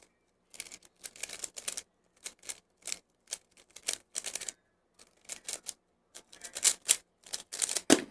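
Speedcube being turned quickly by hand: rapid clusters of plastic clacks from the layers snapping round, in short bursts with brief pauses, louder near the end.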